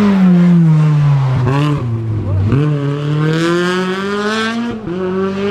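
Rally car engine running hard: the revs drop over the first two seconds with quick blips, then climb steadily under acceleration, with a gear change about five seconds in.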